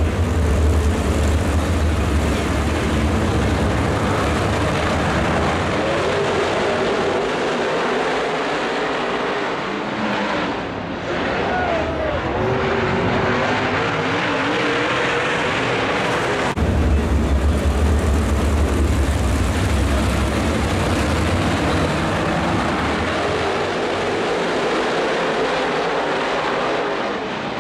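A field of dirt late model race cars racing on a dirt oval, their V8 engines running hard together, with pitches rising and falling as the cars go through the turns.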